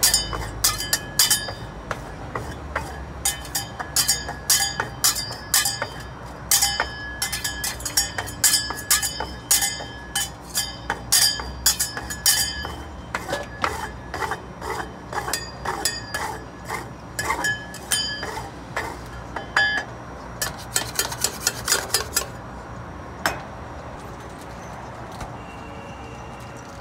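Metal spatulas striking and chopping on the steel cold plate of an iron-plate (rolled) ice cream stall: rapid, irregular, ringing metal clinks, several a second. They stop about 22 seconds in, with one last strike a second later.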